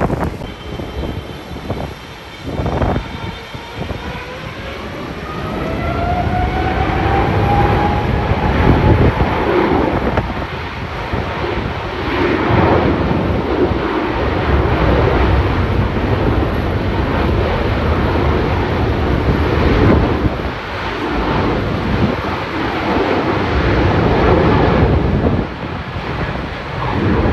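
Jet airliner's engines: a rising whine over the first several seconds, then a loud, continuous rumble with irregular swells.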